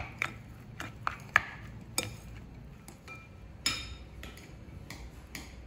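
Spoons scraping and clinking against a ceramic bowl as cooked rice is stirred and mixed, in irregular taps with two sharper knocks, about a second and a half in and just before four seconds.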